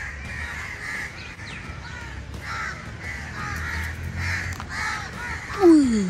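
Crows cawing repeatedly, short calls every half second or so with gaps. Near the end a man's short, loud exclamation falls in pitch as he nearly steps into an uncovered drain opening.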